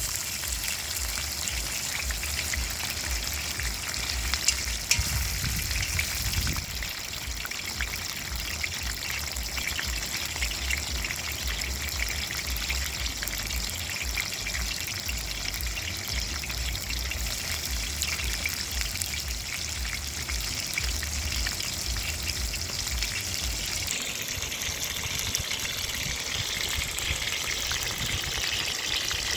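Fish frying in hot oil in a pan: a steady sizzle with many small crackles and pops.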